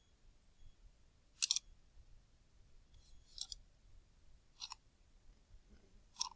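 Four short, faint clicks spaced one to two seconds apart against quiet room tone; the first, about a second and a half in, is the loudest.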